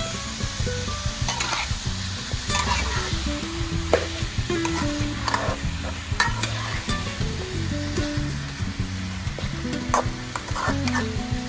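Food frying and sizzling in a pan as it is stirred, with scattered sharp clicks and scrapes of a utensil against the pan. A melody plays underneath.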